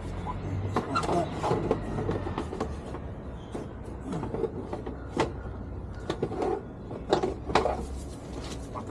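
Hard plastic body panel of a Can-Am Spyder being worked back into place by hand: irregular clicks and knocks of plastic against plastic, the sharpest about five and seven and a half seconds in, over a low steady hum.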